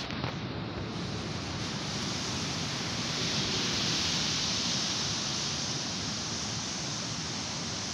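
Surf breaking and washing up a sandy beach: a steady rush of waves that swells to its loudest about halfway through, then eases.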